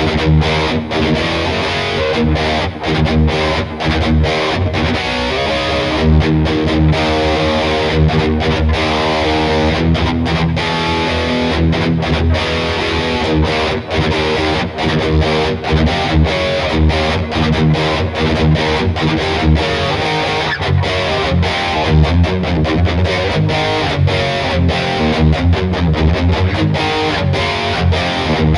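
Schecter Hellraiser Extreme C-1 Maple electric guitar with active EMG pickups, played through heavy distortion: riffs of chords and single notes, with many brief stops between them.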